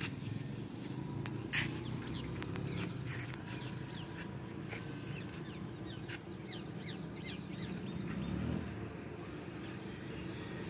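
Small birds chirping in many short, quick, falling notes over a steady low background rumble, with one sharp click about a second and a half in.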